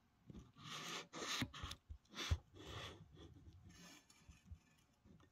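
Faint handling noise: a string of soft, irregular rubbing and scraping sounds.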